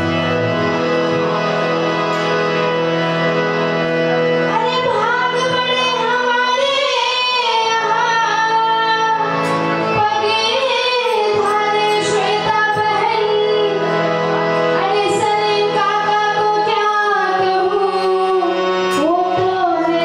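Live lokgeet (Indian folk song) performance: a harmonium holds steady sustained chords, and about four to five seconds in a woman's voice begins singing a winding melody over it.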